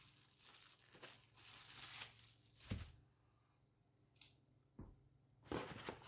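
Packaging being torn open and handled while unboxing: tearing and rustling of cardboard and wrapping, with a few light knocks and a sharp click.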